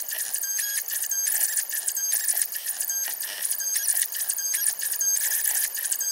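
Homemade CNC machine running as it drags a homemade engraving bit across clear plastic, with a steady high whine and short pitched chirps every half second to a second as the axes move and change direction.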